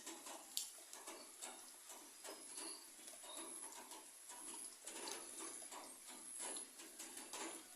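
Rain falling on papaya tree leaves: an irregular patter of separate light taps over a soft, steady hiss.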